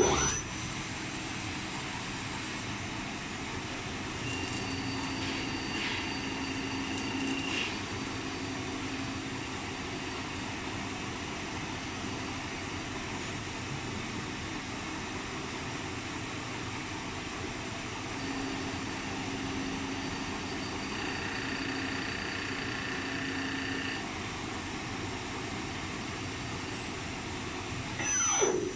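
CNC machining centre cutting a metal workpiece: a steady machine and coolant-like noise, with a higher cutting whine that comes in twice for several seconds each. A short falling swoosh sounds right at the start and again near the end.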